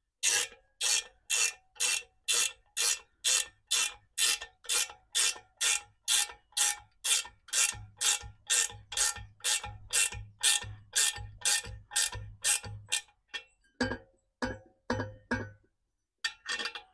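Ratchet wrench worked in quick, even strokes, about two a second, tightening the clamp bolts that hold a universal rain flap on a farm loader's exhaust pipe. From about eight seconds in, each stroke also gives a dull knock. After about thirteen seconds the strokes slow to a few spaced ones.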